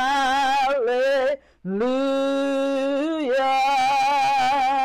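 A woman singing a worship song solo, holding long drawn-out notes, with a brief pause for breath about a second and a half in.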